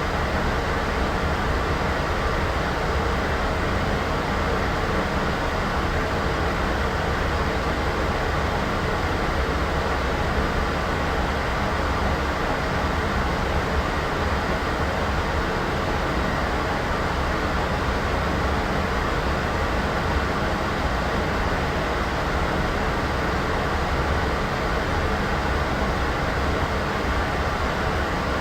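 Steady white noise sound effect: an even, unchanging rush of noise weighted toward a low rumble, thinner in the highs, with no events or changes.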